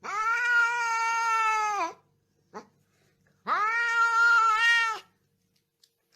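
A cat giving two long, drawn-out meows, each nearly two seconds and steady in pitch before dropping at the end, with a short faint chirp between them.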